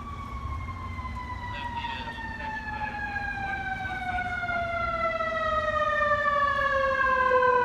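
Emergency vehicle siren in one long, slow wail that falls steadily in pitch and grows louder as it approaches, over a low engine rumble.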